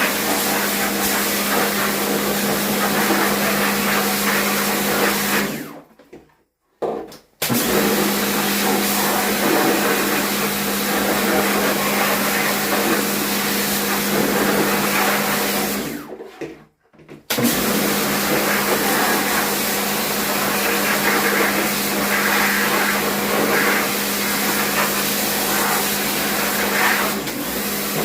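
A small electric motor running steadily with a loud hiss. It cuts out abruptly about six seconds in and again about sixteen seconds in, starting again after roughly a second and a half each time.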